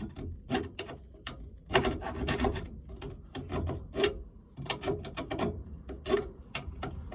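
Hand file rasping on the cut edges of a chainsaw muffler, in repeated strokes at an uneven pace, roughly one or two a second.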